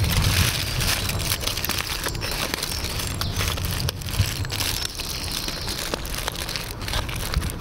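Aluminium foil crinkling and crumpling as a foil-packet meal is folded shut by hand, with many small crackles throughout.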